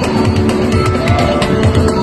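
Loud music with a steady drum beat and guitar.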